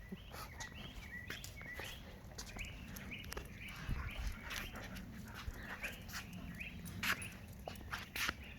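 A dog whining over and over in short high-pitched cries, mixed with sharp cracks and crunches of dogs chewing frozen raw tilapia, bones and all.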